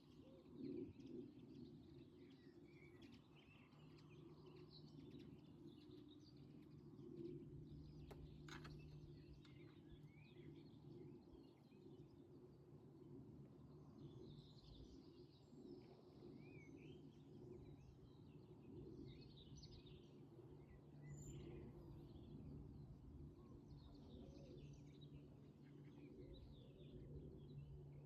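Faint birdsong, many short scattered chirps and calls, over a steady low hum.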